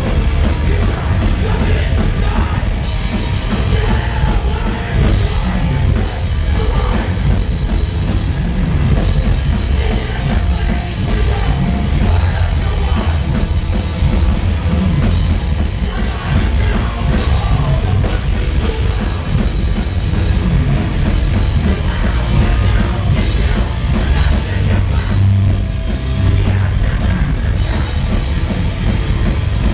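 Thrash metal band playing live at high volume: distorted electric guitars, bass and fast drums, dense and unbroken.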